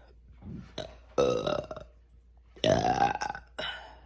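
A person burping loudly several times in a row after chugging Perrier sparkling water: two long burps about a second and a half apart, then a shorter one just before the end, brought up by the gas from the carbonation.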